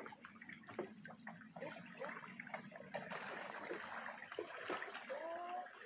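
Canoe paddle dipping into a slow stream, with small splashes and water trickling and dripping off the blade. A brief pitched call sounds near the end.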